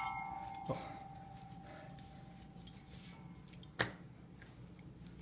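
Struck metal ringing with one clear tone that fades out over about three seconds. There is a knock about a second in and a sharp click near four seconds.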